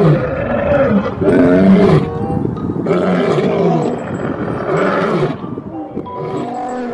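Two male lions roaring together: a run of about six deep calls, each about a second long.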